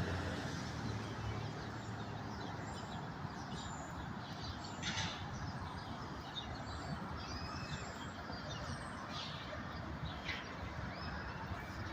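Birds chirping and calling in short, scattered notes over a steady background hum of distant traffic.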